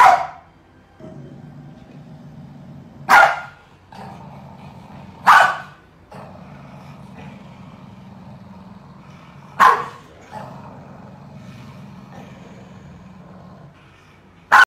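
Corgi barking in single loud barks a few seconds apart, about five in all, with a low steady rumble between them.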